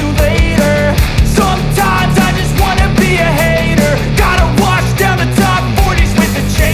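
Background rock music with a steady drum beat, heavy bass and a melodic line.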